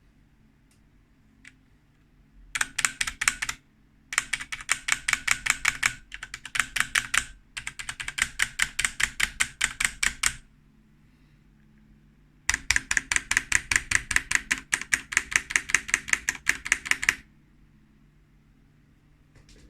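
Keys of a HyperX Alloy Elite RGB mechanical keyboard with Cherry MX Brown switches pressed in rapid runs of several clicks a second. There are four bursts separated by short pauses.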